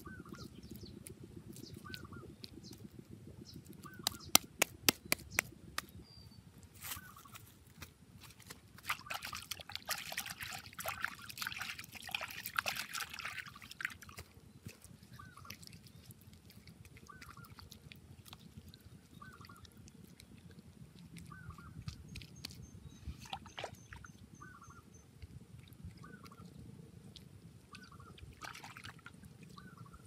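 Wet mud being slapped and smeared by hand onto a mud furnace: a quick run of sharp slaps about four to six seconds in, then a stretch of wet squelching and smoothing a few seconds later. A faint short call repeats about once a second in the background.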